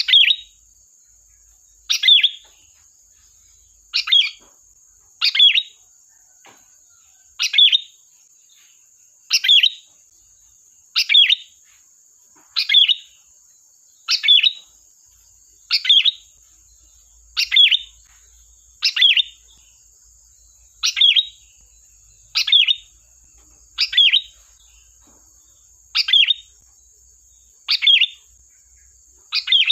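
Sooty-headed bulbul (kutilang) repeating a short, sharp call about every one and a half to two seconds, the piercing 'tembakan' call used to lure other bulbuls.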